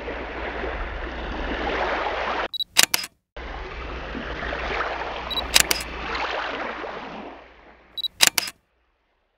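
Digital camera taking photos three times, each a short high focus beep followed by a quick run of shutter clicks, over a steady rushing hiss.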